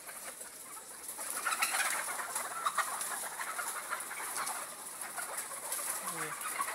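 A flock of caged native Bangladeshi (deshi) hens clucking together in a dense, irregular chatter.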